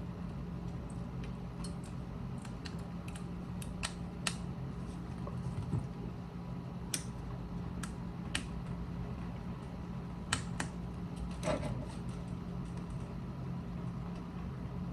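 Small sharp clicks and taps, scattered about eight times, from handling and snapping together the parts of a smartphone being reassembled, over a steady low hum.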